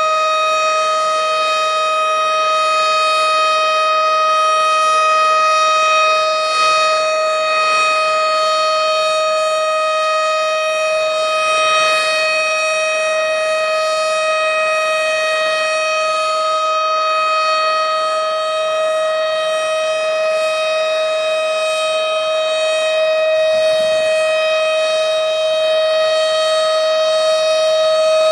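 Tornado warning siren sounding loudly on one steady tone with its overtones, held at a constant pitch without rising or falling.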